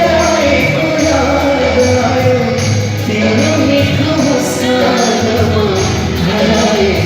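Live band music with singing, played loud, over a steady bass and beat.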